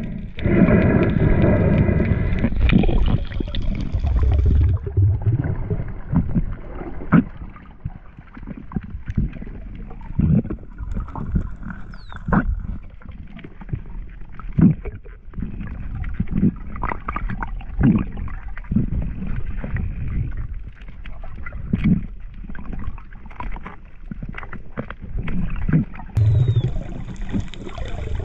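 Underwater camera audio on a shallow reef: muffled water rumble and gurgling with many irregular clicks and knocks. A heavier rumble with a low hum fills the first few seconds.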